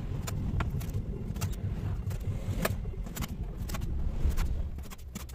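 Hands rubbing and pressing strips of masking tape along the edge of an acoustic guitar's body: a low rumbling rub with irregular sharp clicks.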